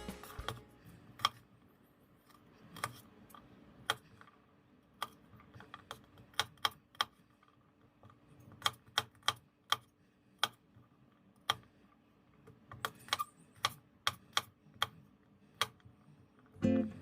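Kitchen food-prep sounds: sharp, separate taps and clicks at an irregular pace, sometimes several in quick succession, over a faint steady hum.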